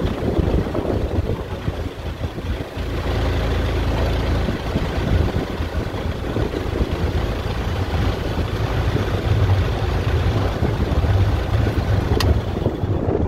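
A steady low engine rumble, with one sharp click near the end.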